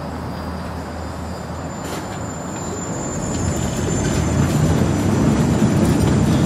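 Construction elevator running up a bridge tower: a steady mechanical rumble with a faint high whine, growing louder about halfway through.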